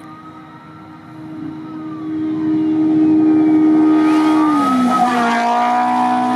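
Off-road race vehicle's engine at high revs, growing louder as it approaches along the dirt road, then passing close by, its engine note dropping in pitch as it goes past.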